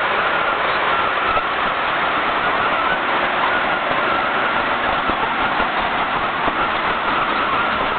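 A heavy machine's engine running steadily under load, with a continuous mechanical din and no distinct knocks or changes.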